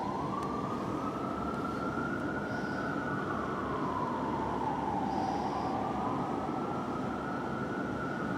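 Fire truck siren on a slow wail: it rises at the start, holds high, dips near the middle and rises to hold high again, over a steady background rush.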